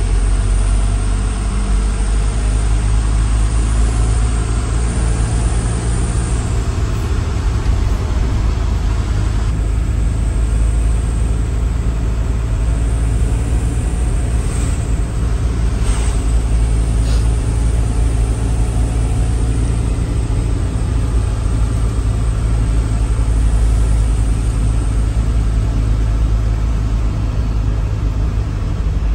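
Truck engine running steadily under way, heard from inside the cab as a constant low drone with road noise.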